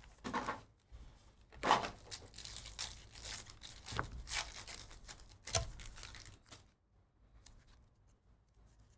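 Trading card pack wrappers being torn open and crinkled, with several rips and rustles in the first six seconds, then only faint handling.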